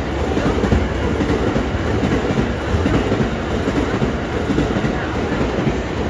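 A JR Hanwa Line train passing over a level crossing: a steady, loud rush of wheels on rail.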